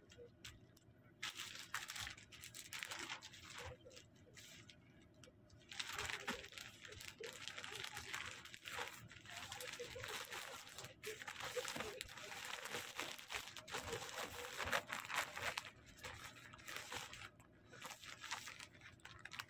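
Plastic packaging crinkling and rustling in irregular bursts as clear poly bags and a plastic mailer bag are handled and moved about.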